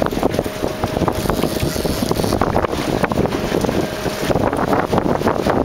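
Wind buffeting the microphone on an open boat at sea: a rough, fluttering rush broken by many small crackling pops.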